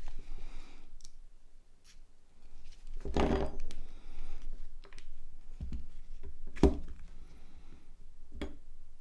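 Handling sounds from taking apart a Nokia C3 phone to remove its display: a longer scraping knock about three seconds in, then several sharp clicks and knocks, the loudest about two-thirds of the way through.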